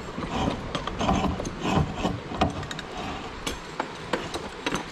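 Brass fitting being screwed onto a dredge pump's threaded outlet: irregular metallic clicks and scraping of the threads and hands working the fitting.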